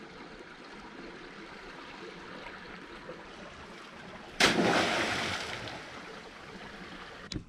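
Sea washing softly against rocks, then about four seconds in a loud splash as a baited lobster pot on a rope is thrown into the water, dying away over a second or two.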